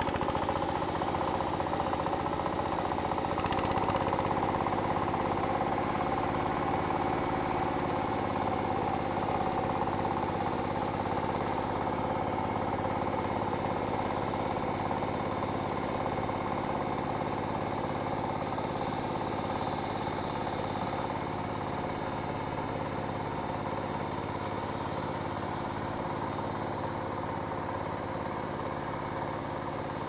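Single-cylinder diesel engine of a two-wheeled hand tractor running steadily under load as it ploughs a flooded rice paddy, growing slightly fainter toward the end.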